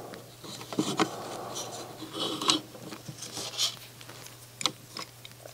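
Plastic CD tray and loading mechanism of a NAD C540 CD player being moved by hand: a few sharp plastic clicks with some scraping and rubbing of plastic parts in between.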